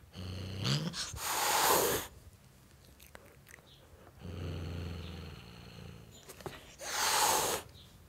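Tom cat hissing twice. Each time a low growl leads into a loud, sharp hiss: the first hiss comes about a second in, the second about seven seconds in.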